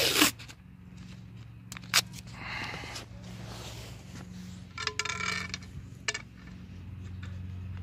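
Paper masking tape being handled and wrapped around a ski pole: a sharp rip at the start, then papery rustling and crinkling with a couple of light clicks.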